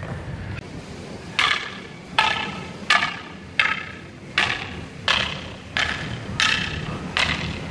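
Eskrima (Filipino short) sticks striking each other in a partner drill. A sharp, briefly ringing clack comes about one and a half times a second, nine strikes in all, starting about a second and a half in.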